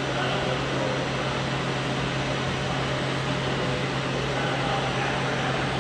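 Hurco VC500i five-axis CNC machining center running a small end mill through a metal part: a steady machine whir and hiss with a constant low hum underneath.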